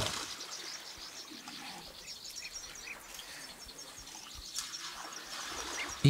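Outdoor savanna ambience with small birds chirping in short, repeated calls over a soft background hum of insects.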